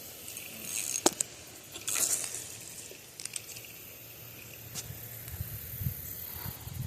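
Fishing reel and line handling noises while a fish is being brought in: scattered clicks, a sharp click about a second in, a short rustling hiss about two seconds in, and a low rumble of handling from about five seconds on.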